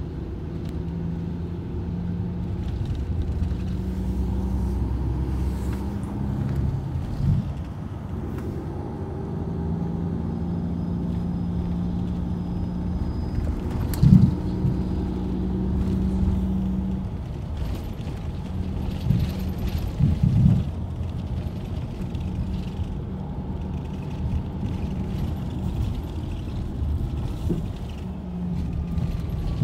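Highway coach heard from inside the cabin as it drives through city streets: a low engine hum and road rumble that rise and fall with the traffic. A single sharp knock about halfway through and two quick knocks a few seconds later.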